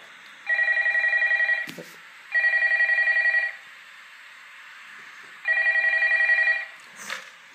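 Telephone ringing three times with an electronic warbling ring, each ring lasting a little over a second with pauses between, over a steady hiss.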